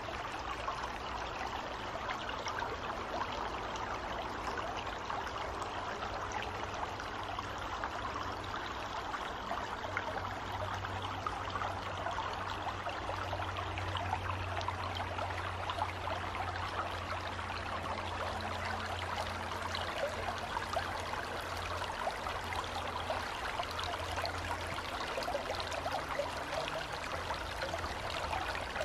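Shallow stream flowing steadily over a stony bed.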